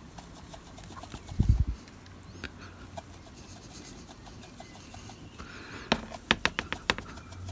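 Handheld static grass applicator being shaken over model scenery, giving faint ticking, a low bump about one and a half seconds in, and a quick run of sharp taps near the end.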